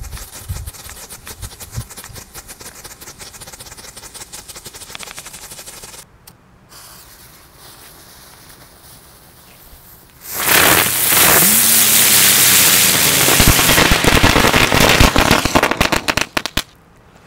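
Three small Flash Fountain ground fountains hissing and crackling as they spray sparks. After a sudden cut and a few seconds of quieter hiss, a Terror ground firework goes off in a loud, dense run of rapid crackling bangs for about six seconds, then stops abruptly.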